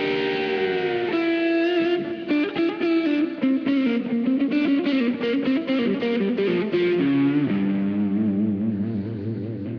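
Background music: an instrumental guitar passage with electric guitar, with held notes that bend and quick runs of notes.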